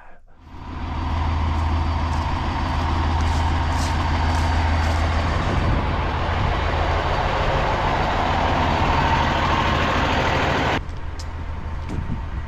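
Millermatic 255 MIG welder laying a bead on angle iron: a steady crackling hiss over a low hum for about ten seconds, with a few sharp pops. The arc stops abruptly near the end, and a quieter low hum carries on.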